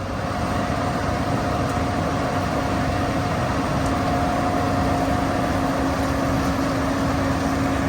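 Diesel farm tractor engine running steadily, with a constant low hum and a fainter higher whine that fades near the end.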